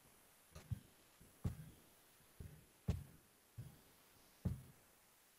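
A series of soft, irregular taps, about seven in five seconds, each a short low thud with a faint click on top.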